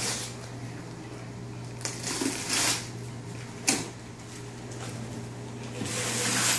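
Wrapping paper and gift packaging rustling and tearing in several bursts as a present is unwrapped, one short sharp rip a little before halfway and the longest burst near the end, over a steady low hum.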